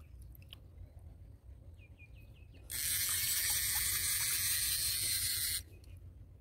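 Fishing reel's drag giving line to a big hooked fish: a steady hiss that starts abruptly a little under halfway in, runs about three seconds and stops sharply.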